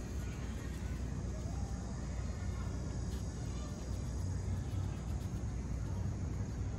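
Steady low background rumble of city ambience.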